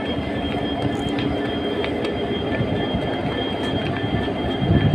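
A train at a station platform: a steady rumble and hiss with a thin, high whine held over it.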